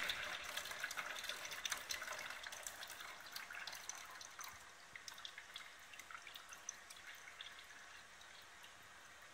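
Padding liquor draining from a laboratory padder's outlet valve into a plastic beaker: a thin trickling stream with small splashes and drips, growing slowly fainter.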